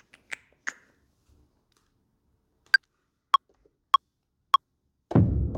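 Metronome count-in from Ableton Live: four short clicks about 0.6 s apart, the first an accented higher tick and the other three lower. Near the end the track comes in with a loud, deep sound.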